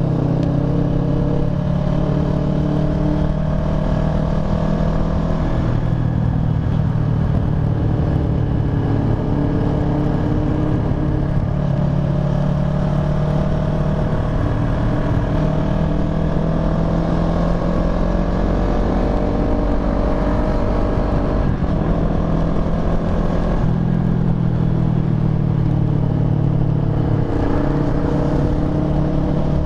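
Kawasaki ER-6n's parallel-twin engine running under way, its note rising and dropping several times with throttle and gear changes, over a steady low wind rumble on the microphone.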